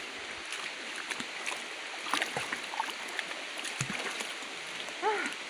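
Shallow river water running steadily, with small splashes and knocks from people wading and swimming in it. Near the end there is a short pitched call.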